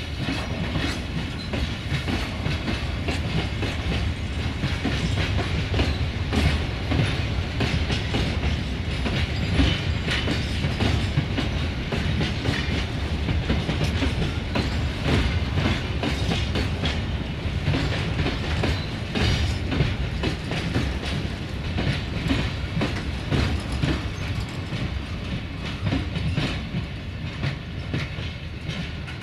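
Freight train of covered hopper wagons rolling past, with a steady rumble and a constant clickety-clack of wheels clattering over the track.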